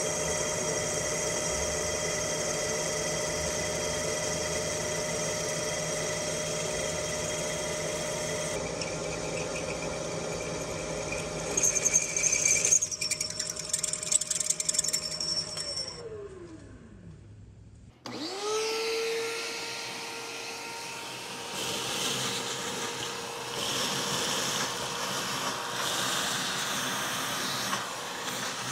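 Milling machine spindle running as a twist drill bores a 3/8-inch pilot hole in the cast vise body, with a louder, uneven stretch of cutting about halfway through. The spindle then winds down to a stop, and a shop vacuum starts up, its pitch rising and settling into a steady run as it sucks up the chips.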